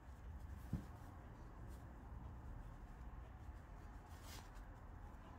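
Faint rustling of cotton fabric and elastic being handled, with a soft knock about a second in.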